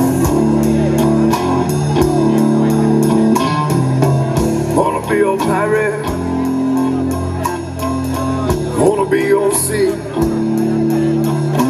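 Live rock band playing: sustained electric guitar and bass chords that change every couple of seconds over a steady drum and cymbal beat.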